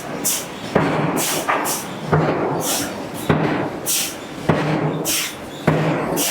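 Hydraulic forging hammer striking a steel billet in a steady rhythm, five blows about 1.2 seconds apart, with a short hiss between blows.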